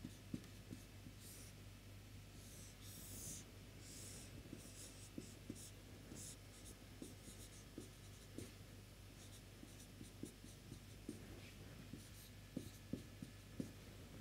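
Marker pen writing on a whiteboard: faint scratchy strokes and small taps as lines and boxes are drawn, with a few squeakier strokes in the first few seconds.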